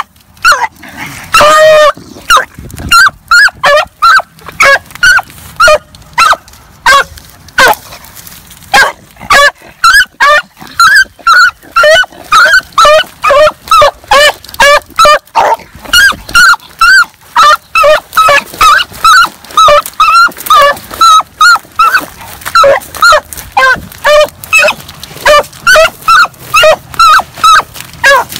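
A rabbit-hunting hound baying on a rabbit's trail: loud, short, pitched barks repeated about twice a second, with one longer drawn-out bawl near the start.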